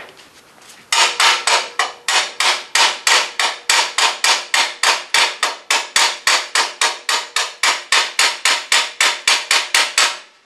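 Chipping hammer striking a freshly laid stick-weld bead on 1/8-inch steel plate in quick, even blows, about three or four a second, knocking off the flux slag. The hammering starts about a second in and stops just before the end.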